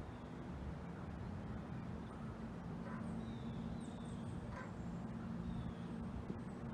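Faint bird calls over a steady low hum: a few short falling chirps and brief high squeaks, most of them in the middle of the stretch.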